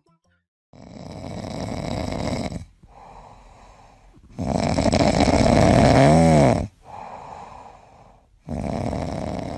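A sleeping kitten snoring: three long, noisy snores at intervals of about three and a half seconds, with softer breaths between them. The middle snore is the loudest and ends in a wavering snort.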